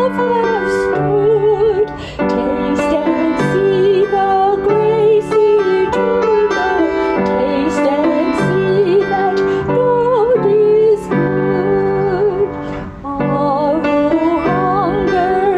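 A hymn sung by a woman's voice with vibrato, accompanied on an upright piano.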